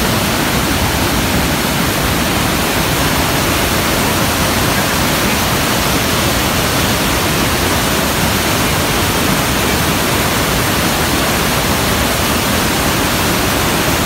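Rhine Falls: the loud, steady rush of water pouring over the falls and churning in the basin below, an even hiss that never lets up.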